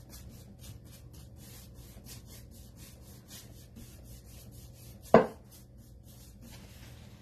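Bristle paintbrush scrubbing chalk-style paint onto a wooden shelf in quick back-and-forth strokes, about four a second. A single sharp knock about five seconds in is the loudest sound.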